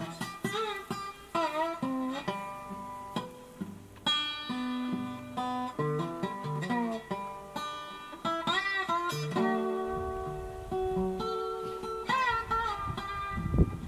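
Background music: a guitar picking out a melody in separate plucked notes, some of them sliding in pitch.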